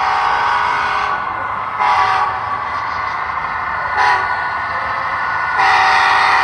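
Model diesel locomotive's sound-decoder horn blowing the grade-crossing signal: a long blast, a second long blast about two seconds in, a short toot about four seconds in, and a final long blast starting near the end.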